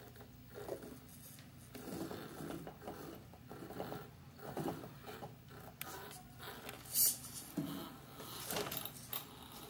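1/10-scale RC rock crawler with a brushed motor and geared drivetrain crawling slowly over wooden blocks: irregular scraping and knocking of its rubber tires and axles against the lumber, with faint mechanical whirring. A sharp click about seven seconds in.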